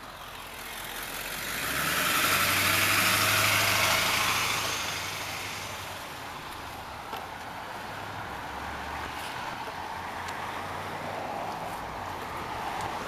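A car passing close by on the road, its engine and tyre noise swelling for a few seconds and then fading, followed by a steady, lower hum of traffic.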